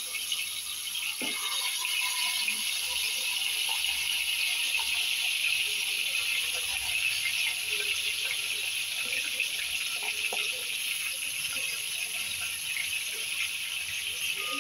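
Fish pieces and a fish head sizzling as they shallow-fry in hot mustard oil in a kadhai: a steady crackling hiss.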